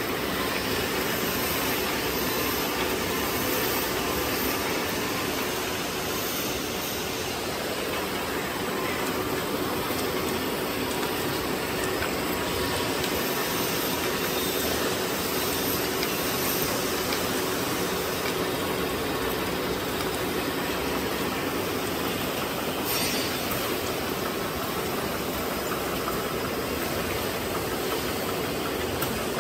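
Bouillon cube wrapping and packing machinery running: a steady mechanical noise with a faint hum.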